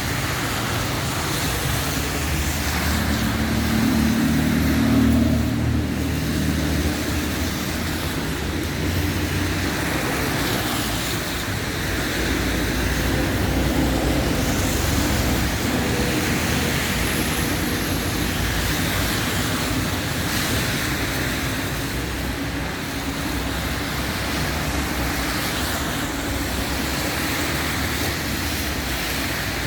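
Steady road traffic noise, with a vehicle engine hum growing louder about three to six seconds in.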